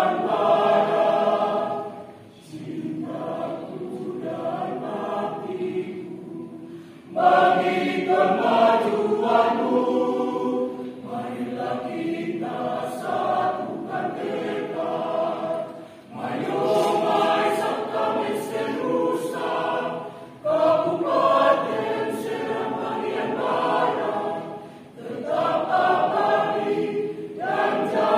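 A mixed choir of men and women singing in phrases broken by short pauses. The full choir comes in suddenly louder about seven seconds in.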